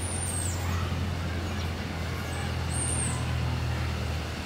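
Steady low hum of a running vehicle engine, with two short high chirps, one at the start and one about three seconds in.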